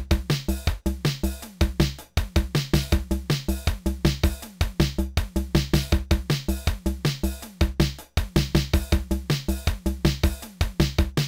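Roland TR-6S drum machine playing a fast, busy electronic drum pattern with kick, snare and hi-hat sounds several hits a second. The groove drops out briefly about two seconds in and again near eight seconds.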